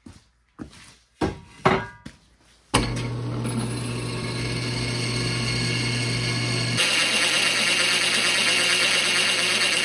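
A few knocks and clacks. Then, about three seconds in, a drill press motor starts with a steady hum. Near seven seconds its bit bites into square steel tubing, and a bright grinding of metal being cut takes over.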